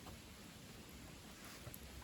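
Wood fire burning in a secondary-combustion camp stove: a faint, steady hiss with a few soft crackles.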